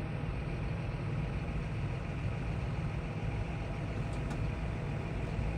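Tractor's diesel engine running steadily under load, a low, even drone with no change in pitch.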